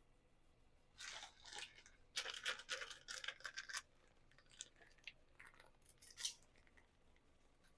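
Packaging crinkling and tearing in a run of short, rustling bursts, followed by a few lighter rustles and clicks.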